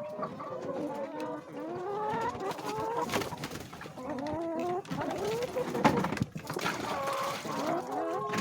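A flock of chickens clucking and calling, many birds overlapping with short rising calls throughout, and a couple of sharp knocks near the middle.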